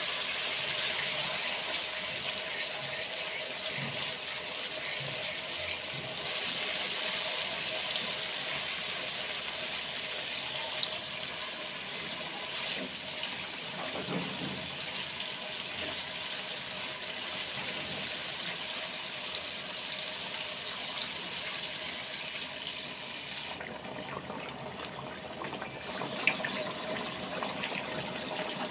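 Fish curry sizzling and bubbling in a pan on the stove, a steady hiss with a spatula stirring through it and a couple of sharp clicks.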